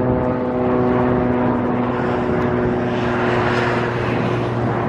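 A steady low engine hum with an aircraft passing over, its noise swelling to a peak about three and a half seconds in and then easing off.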